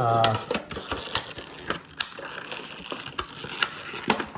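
Foil Pokémon booster pack wrapper crinkling and crackling as it is handled, with irregular sharp clicks and rustles.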